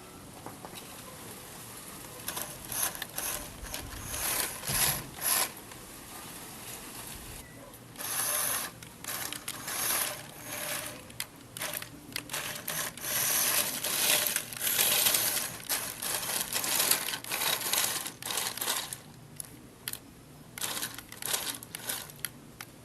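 Huina 1569 remote-control toy bulldozer running in short bursts: its small electric drive and gearing whir and rattle for a second or two at a time, stopping and starting again, as it pushes dirt.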